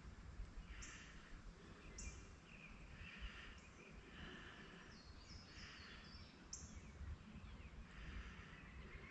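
Faint outdoor ambience: a low rumble under faint chirping calls that repeat about once a second.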